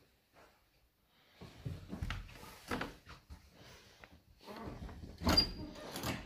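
Footsteps and knocks from someone walking through a carpeted room and hallway, handling the phone as they go, with a louder clunk and a brief squeak about five seconds in.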